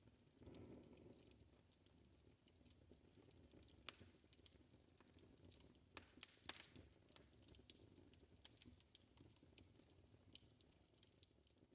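Near silence: faint room tone with scattered small clicks and ticks.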